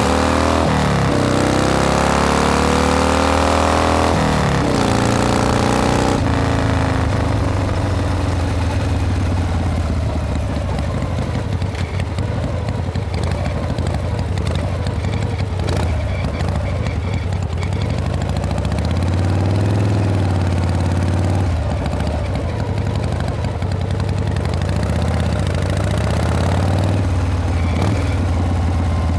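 Harley-Davidson Panhead V-twin motorcycle riding with wind rush. The engine pitch rises twice in the first six seconds with a drop in between, then settles into a steady cruise, swelling briefly about two-thirds of the way through.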